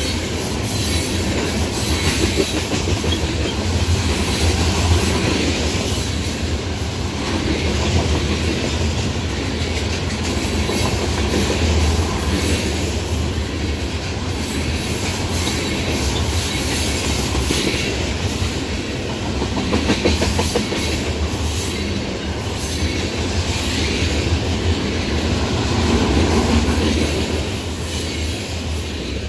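Crude-oil tank cars of a long freight train rolling past close by: a steady low rumble of steel wheels with rapid clicking as they cross the rail joints. It gets a little quieter near the end as the last car goes by.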